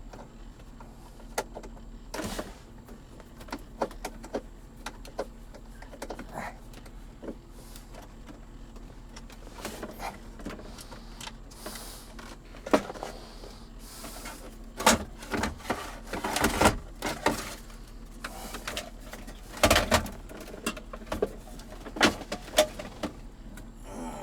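Irregular clicks, knocks and rattles of hands moving and handling plastic interior trim and parts in a car, sparse at first and busier in the second half.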